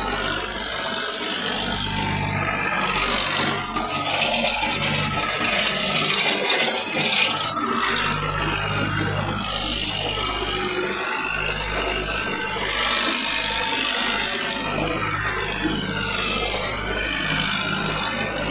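Tractor diesel engine running steadily: a low, even hum under a constant noisy wash.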